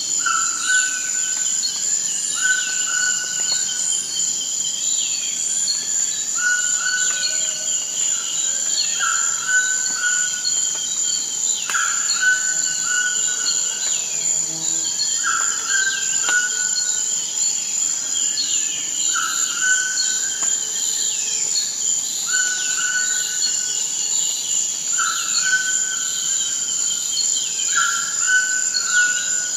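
Forest ambience: a steady high-pitched insect drone, with a short call repeated about every two seconds and many quick falling chirps over it.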